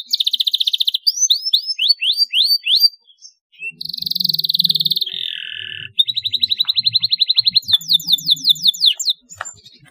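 Domestic canary singing a loud, varied song: fast trills and runs of downward-sweeping whistled notes, with a brief pause about three seconds in and a harsher buzzy phrase a little after four seconds.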